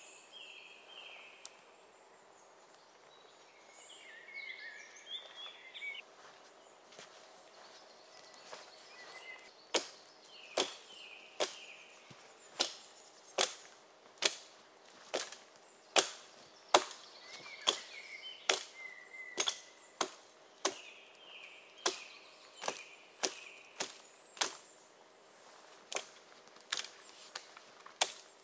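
Axe (Gränsfors Bruk Vildmarksyxa) chopping wood: sharp strikes in a steady rhythm of a little more than one a second, starting about a third of the way in. Birds chirp before and between the strikes.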